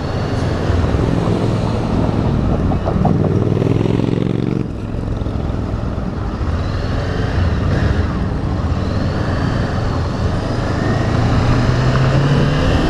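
Motorcycle engine, a Honda CB500F parallel twin, accelerating from a stop in traffic. Its pitch rises twice and breaks off sharply after the first rise, about five seconds in, with steady road and traffic noise underneath.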